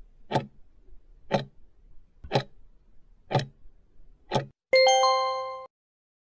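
Countdown timer sound effect: five clock ticks about a second apart, then a bell-like chime that rings for about a second and cuts off suddenly, marking the end of the time allowed to answer a test question.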